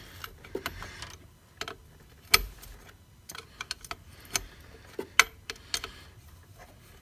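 Scattered sharp metal clicks and clinks at irregular intervals, the loudest about two and a half seconds in: hand tools and loose shifter linkage parts being handled while the old shifter is removed.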